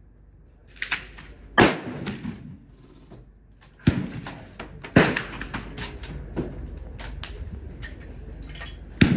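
Gunshots at a shooting range: four loud, sharp reports at uneven intervals, each with a short echo, and a few fainter cracks between them.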